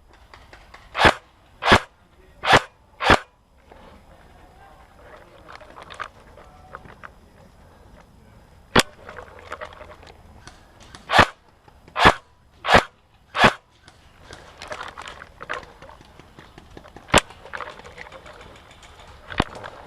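Airsoft gun firing single shots in short strings: four quick shots, a lone shot, another string of four, then one more.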